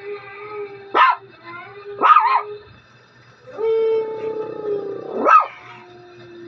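A husky howling from a TV: long drawn-out howls that bend slowly in pitch. Three short, sharp yelps break in, about a second in, about two seconds in and just after five seconds.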